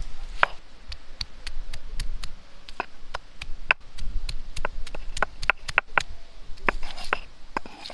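Stone roller rolling over a flat stone grinding slab, crushing food by hand. It makes irregular sharp clicks and knocks of stone on stone, a few a second.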